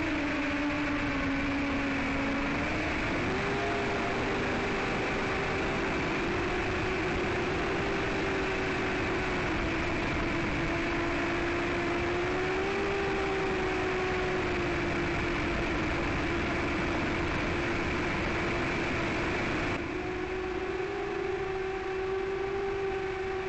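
Four Emax RS2205 2600kV brushless motors of a 5-inch FPV quadcopter spinning 5x4-inch propellers: a steady whine over a continuous rush of noise. The pitch dips briefly about a second in, rises a little about three seconds in, and swells and then falls again near the end.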